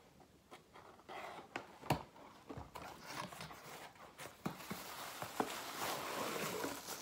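A cardboard box being opened by hand: its flaps scrape and knock as they are pulled open, with a few sharp knocks. Steady rustling of the packaging begins about two-thirds of the way through, as a hand reaches in for the contents.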